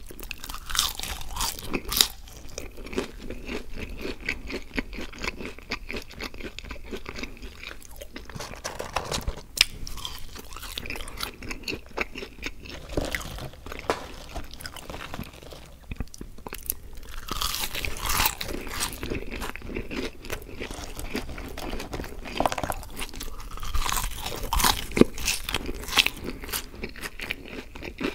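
A person chewing French fries and burger close to the microphone: steady crunching and many sharp wet mouth clicks, with louder spells of crunching several times.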